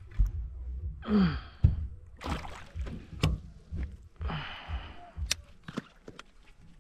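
Breathy sighs or exhalations from a person, twice, each falling in pitch, among scattered knocks and clicks of gear being handled in a small boat.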